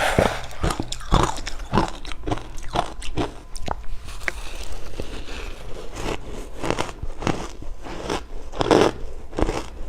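Crunchy ice being bitten and chewed close to the microphone: a fast run of sharp, irregular crunches, several a second, with a loud bite near the end.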